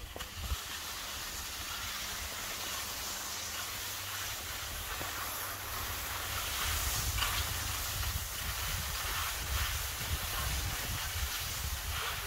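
Skis hissing and scraping over packed snow during a downhill run, with wind rumbling on the microphone and a few louder scrapes at the turns.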